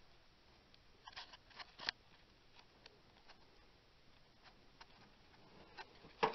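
Mostly quiet, with a few light clicks and taps: a small cluster about a second in and a sharper click near the end.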